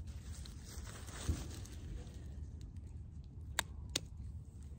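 Hand pruning shears cutting through limp cauliflower stalks at ground level: two sharp snips close together near the end, with a dull knock about a second in.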